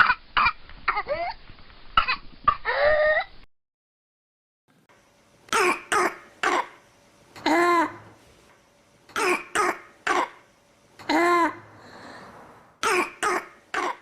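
Coughing recordings. First a few short coughs with a brief rising pitched intake. Then, after about a second of silence, whooping cough: bouts of two or three quick coughs, each of the first two followed by a long, high-pitched whooping in-breath.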